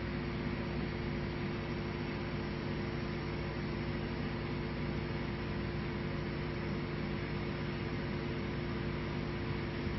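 Steady mechanical hum with a fan-like hiss, holding several constant tones and not changing.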